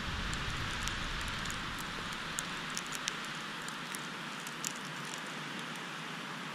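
Wind blowing on the camera microphone, with a low rumbling gust in the first two seconds, and scattered light ticks of snow striking the camera.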